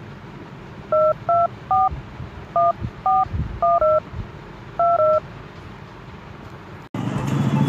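Phone keypad touch-tones (DTMF) as a number is dialled: about nine short two-note beeps at an uneven pace over some four seconds. Music starts suddenly near the end.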